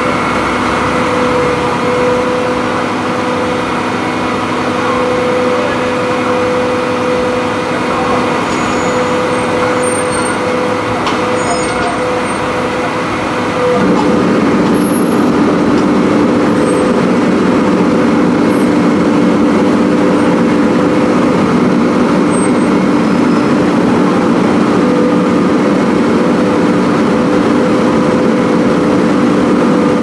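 Fire truck's diesel engine running steadily at high idle, as it does to drive the hydraulics of the raised aerial ladder platform. About halfway through it steps up louder and slightly higher, and it holds there.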